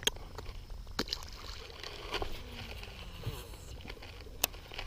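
Handling noises in a fishing boat as a small bass is unhooked: a few sharp clicks and knocks spread out over light water sloshing.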